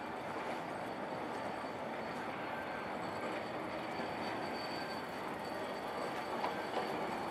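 Leoliner low-floor tram approaching on street track, its wheels giving a steady high-pitched squeal over a rushing background of street noise.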